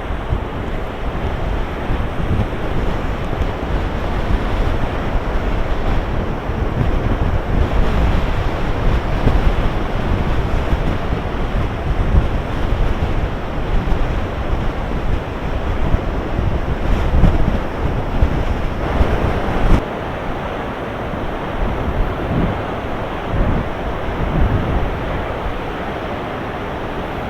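Big storm waves breaking and surging on the shore, with strong gusty wind buffeting the microphone as a low rumble. The loudness swells and falls unevenly with the gusts and breakers, easing slightly about twenty seconds in.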